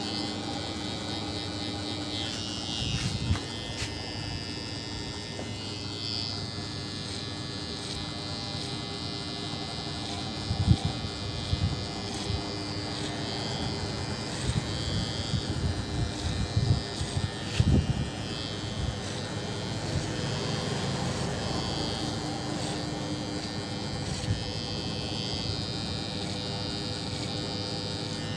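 Electric hair trimmer buzzing steadily as it cuts hair over a comb, with a few dull knocks in the middle.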